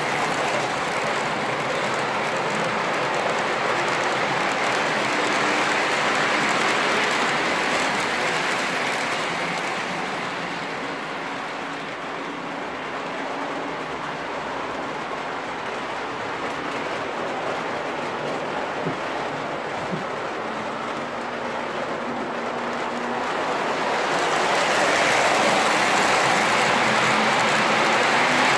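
O gauge model freight train rolling past on three-rail track: the steady rumble and rattle of metal wheels and cars. It is louder while the cars pass close and softer through the middle stretch.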